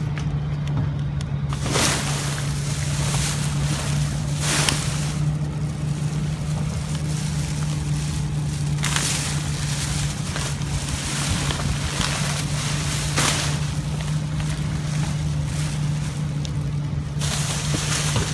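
Plastic bags rustling and crinkling in several short bursts as bags of goods are handled, over a continuous low steady hum like an idling engine.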